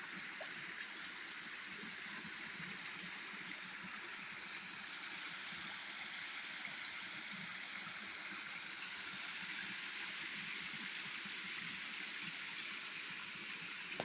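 Creek water running steadily through and over a beaver dam of sticks and branches, spilling into the small stream below.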